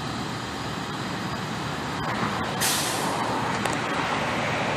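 A heavy vehicle running, with a sudden sharp hiss of released air from its air brakes a little over two and a half seconds in that fades over about half a second.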